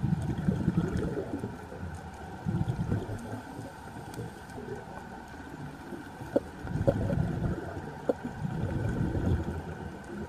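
Scuba diver's regulator breathing underwater: exhaled bubbles gurgle out in bursts of about a second, four times, over a steady underwater hum, with a few sharp clicks in the middle.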